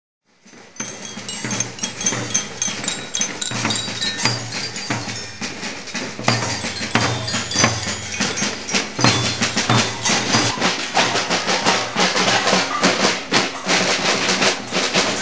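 Children's marching band of snare drums playing a fast, steady beat, with high ringing notes over the drumming. It starts about half a second in.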